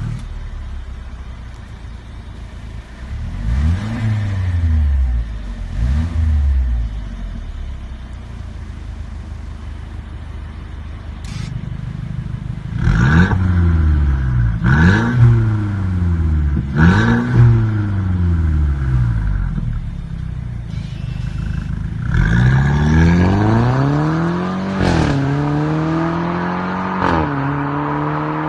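Mercedes-Benz E300's 2.0-litre turbocharged four-cylinder through an aftermarket RES valved performance exhaust: revved twice, idling, then revved three times in quick succession. Near the end it accelerates away, the note rising and dropping back twice as it shifts up.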